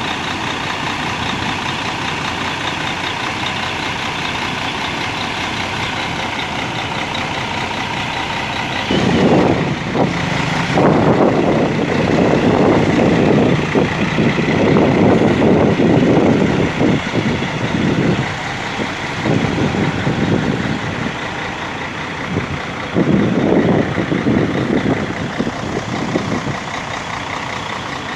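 Mercedes-Benz bus diesel engine idling steadily with a constant high tone over it. About nine seconds in it starts running much louder in irregular surges as the bus pulls away. It eases off, then surges again near the end.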